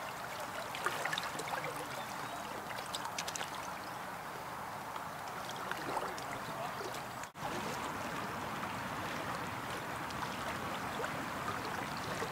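Shallow river water flowing and rippling steadily, with a few light clicks in the first half. The sound cuts out for an instant about seven seconds in, then the flowing water carries on.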